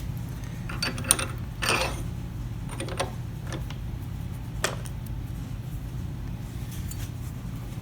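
A few light clicks and short scrapes as the copper bird's leg is turned and worked into its wooden base, over a steady low hum.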